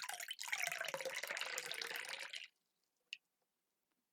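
Tea poured into a cup in a steady stream that stops after about two and a half seconds, followed by a single small click.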